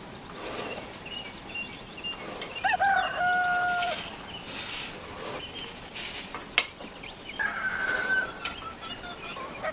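An animal call with a wavering start that settles into a held note, loud and about a second long, about three seconds in, then a fainter second held call near the end. Short bursts of hiss and a single sharp click fall between the two calls.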